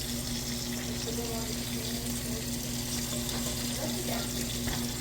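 Hot oil sizzling steadily in a frying pan, over a constant low hum.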